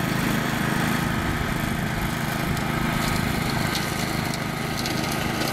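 Farm tractor engine running steadily, a continuous low drone.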